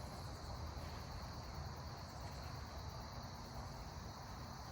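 Faint, steady outdoor background with insects chirring.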